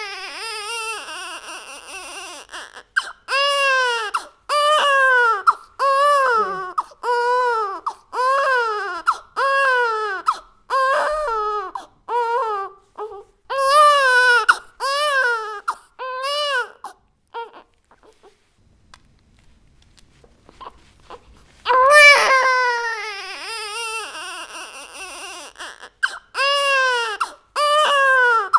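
Baby crying hard in a run of short wails, each rising and falling in pitch. The crying stops for a few seconds about two-thirds of the way in, then starts again.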